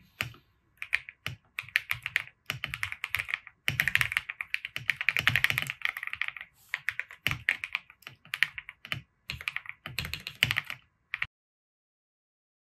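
Typing on a computer keyboard: quick runs of keystrokes with short pauses between words, stopping abruptly near the end.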